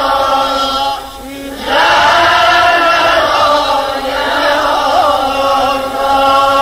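Voices chanting a slow devotional lament in long held notes, with a short break about a second in before the chant resumes.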